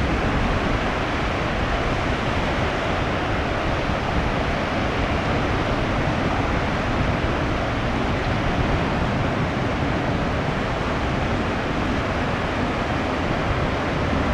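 High surf from a typhoon's aftermath, waves breaking in a steady wash of noise, with wind.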